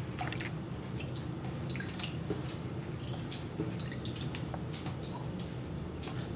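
Water splashing and dripping in a shallow plastic tub as hands scoop water over a boa constrictor's neck and lift its wet body, in many small irregular splashes over a steady low hum.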